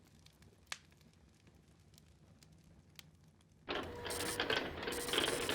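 Low room tone with a faint click, then about two-thirds of the way in a printer starts up with a dense, steady mechanical clatter.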